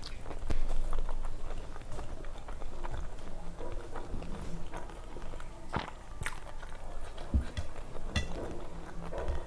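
A person chewing and eating food close to the microphone, with scattered short clicks and mouth sounds.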